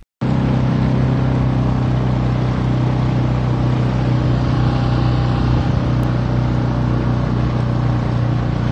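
Outboard motor of a micro skiff running steadily at speed, a constant low drone with the rush of wind and water over it.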